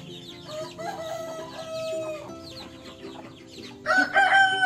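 Rooster crowing twice, the second crow louder and starting about four seconds in, over light background music.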